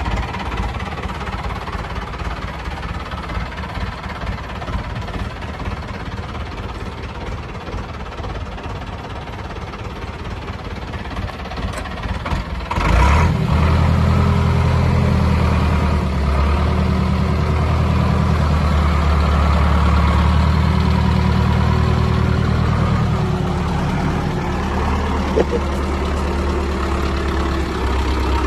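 Zetor 6340 tractor's four-cylinder diesel engine idling. About thirteen seconds in it suddenly becomes louder and fuller in the low end, then runs steadily at that level.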